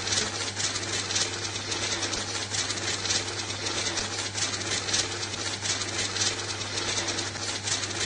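Banknote counting machine running, its motor humming steadily while bills riffle through with a fast, even flutter.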